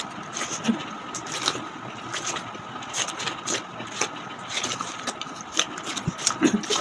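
Watermelon being eaten fast: wet, crunchy bites, chewing and slurps coming in quick irregular strokes. A steady hum runs underneath.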